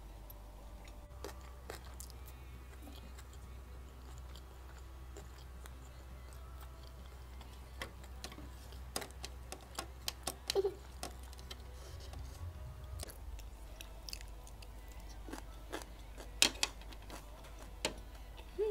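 Quiet chewing of food, with scattered sharp clicks of wooden chopsticks tapping on a plastic tray, over a faint low hum.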